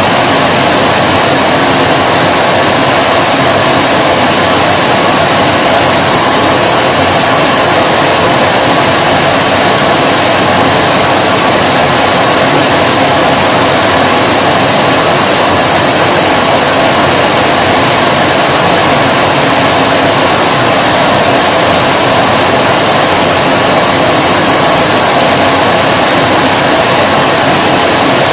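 Vacuum cleaner motor running steadily, a loud, even whir with a mid-pitched drone and a hiss over it that never changes in pitch or level.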